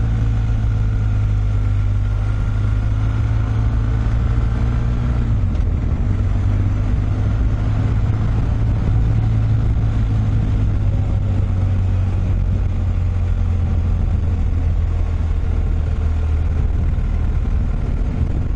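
Vehicle engine running steadily under way, with road noise; its pitch shifts about five seconds in.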